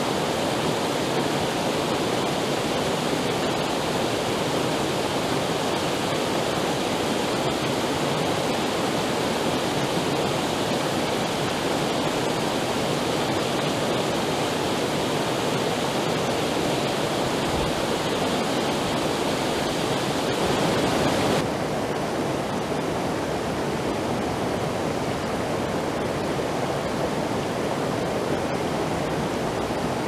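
Small mountain creek waterfall pouring over boulders into a pool: a steady rush of falling water. About two-thirds of the way through the rush turns suddenly duller and slightly quieter.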